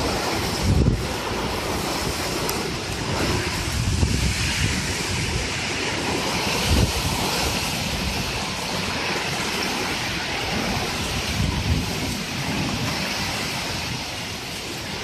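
Heavy rain pouring down in a steady hiss, with wind buffeting the microphone in a few brief low gusts.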